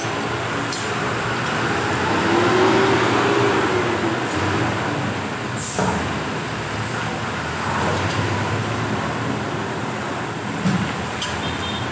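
Road traffic going by, with one passing vehicle's engine note rising and falling a couple of seconds in. A few light clicks sound over it.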